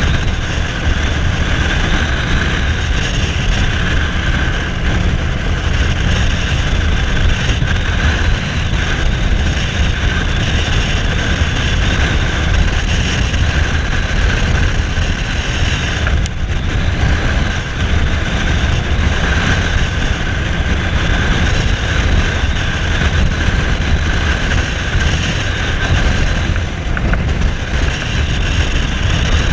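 Cruiser motorcycle engine running steadily at road speed, with wind rushing across the microphone. The sound dips briefly about halfway through.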